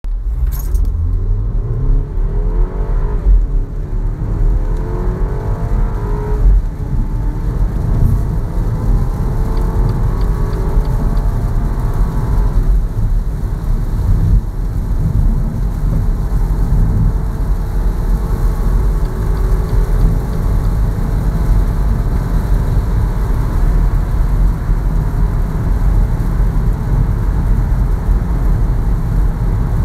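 2019 BMW X1 accelerating hard from a standstill to about 190 km/h, heard from inside the cabin. The engine note climbs and drops back at each upshift, about three and six seconds in and again near twelve seconds. After that it settles into a steady drone under heavy road and tyre rumble as speed keeps building.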